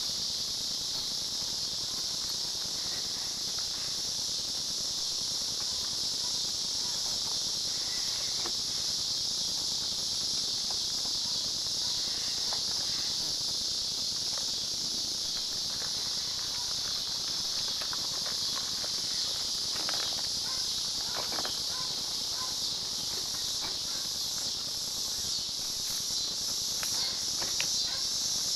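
Steady, dense insect chorus, a high continuous buzz that never lets up, with a few faint clicks in the second half.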